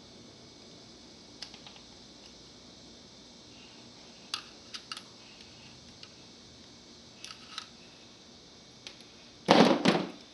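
Light scattered clicks of hand tools and metal parts as an old radio is stripped for scrap, then a louder clatter of about half a second near the end.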